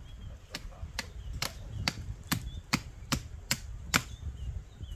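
Chopping in a steady rhythm, about two to three sharp strokes a second. A bird chirps faintly now and then.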